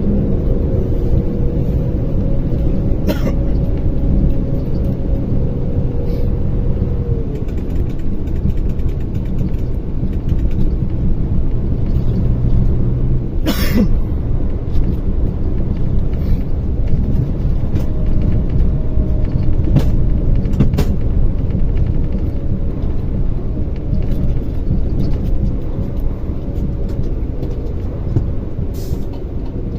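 Mercedes-Benz Axor 2644 truck's six-cylinder diesel engine running under way, with a steady low rumble of engine and road noise and a few sharp knocks from bumps or rattles along the way.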